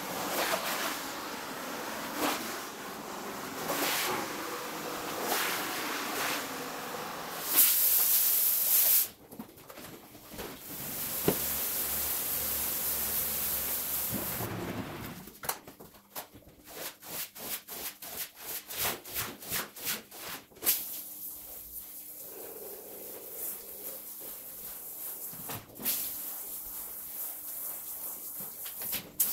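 Pressure-washer water spray hissing on a wet rug and a tiled wash floor, in quick sped-up cuts with a loud burst of spray partway through. Midway comes a run of short, even strokes, about three a second.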